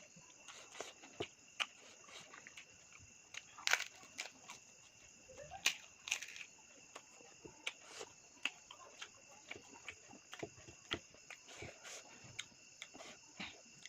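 Wet chewing and smacking clicks from someone eating, some sharper and louder than others, over a steady high drone of insects.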